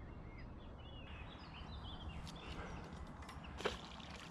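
Small birds chirping over a low, steady outdoor rumble, with a few sharp clicks from about a second in, the loudest one near the end.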